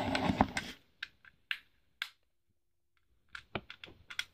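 Small plastic clicks and taps from a fidget cube being handled: a few scattered clicks, a short quiet gap, then a quick run of clicks near the end.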